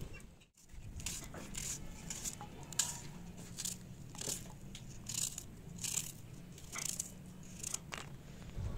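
Kitchen knife cutting through a raw onion held in the hand, a crisp crunch with each cut, repeated roughly every second at an uneven pace.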